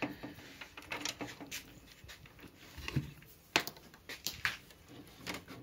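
Sparse light clicks and knocks, roughly a second apart, from handling the plastic covers and drum units of an opened Oki laser printer.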